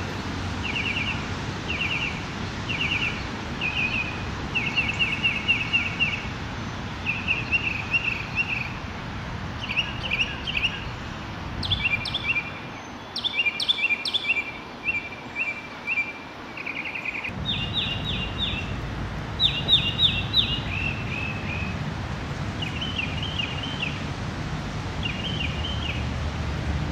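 Northern mockingbird singing: short phrases of quick, high repeated notes, each phrase given a few times before it switches to another, over a steady hiss of rain.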